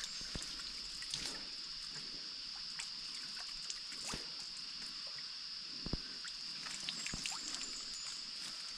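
Steady high-pitched drone of forest insects, with faint scattered clicks and rustles.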